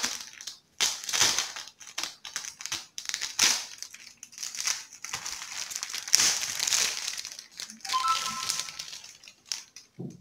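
Clear plastic wrapping on a new antibacterial HEPA air-purifier filter crinkling as it is handled and pulled off, in irregular rustling bursts.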